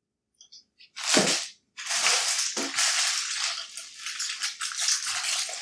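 Clear plastic packaging wrap crinkling as it is handled, starting with a loud crackle about a second in and then rustling and crackling on and off.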